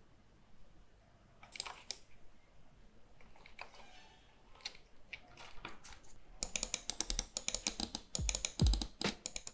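Scattered sharp plastic clicks, then from about six seconds in a rapid run of clicking like buttons or keys being pressed in quick succession. Near the end an electronic beat with deep falling kick drums comes in.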